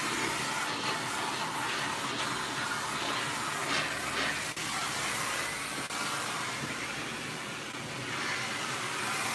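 Vacuum cleaner running: a steady, even hiss that holds without a break.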